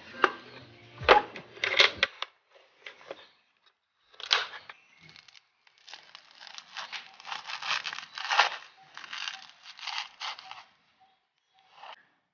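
Crisp crunching and crackling of toasted banana bread, in irregular bursts with a dense run in the second half.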